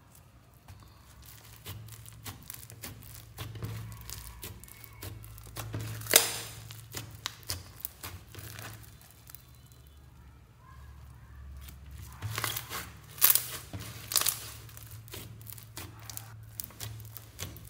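Foam-bead slime being squeezed and kneaded by hand: a steady run of crackling, sticky clicks and pops, with a few louder pops about six seconds in and again twice near the end.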